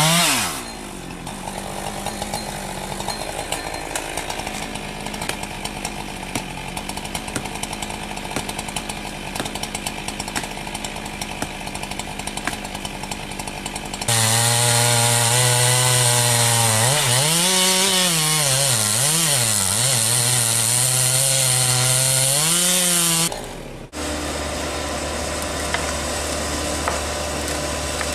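Chainsaws cutting wood, heard in several clips joined with hard cuts. A steady, quieter cutting sound runs for about the first half. Then a louder saw runs at high revs, its pitch dipping and rising repeatedly before it cuts off suddenly, and a steady low engine hum follows near the end.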